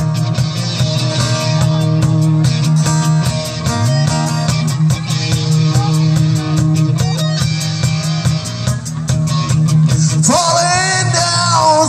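Live rock band playing an instrumental passage: electric guitar and bass over a drum kit keeping a steady fast beat on the cymbals. A singer comes in about ten seconds in.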